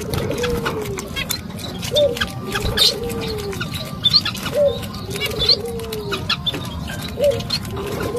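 A young otter crunching and chewing food held in its paws, with rapid wet clicking bites throughout. Over it, a short rising note and then a longer arching tone repeat about every two seconds.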